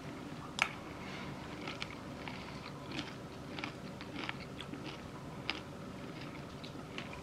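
A person chewing crunchy food close to the microphone: a run of small, irregular crunches, one sharper than the rest about half a second in.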